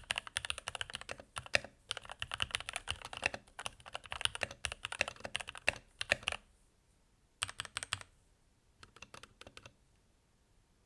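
Typing on a Keychron K8 mechanical keyboard with lubed Gateron Red linear switches: rapid steady keystrokes that stop about six seconds in, followed by two short bursts of keypresses, the second fainter.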